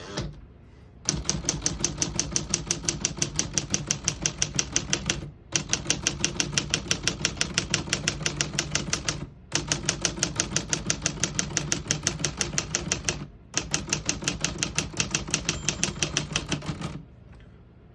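Keys of a 1957 Remington Quiet-Riter portable typewriter striking in a fast, even clatter of about six keystrokes a second, in four runs with short pauses. The line is typed out to the right margin stop. The typing stops about a second before the end.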